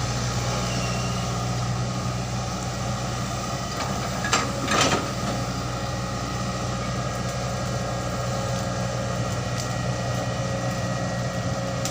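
Excavator's diesel engine running steadily, with two short knocks about four and five seconds in.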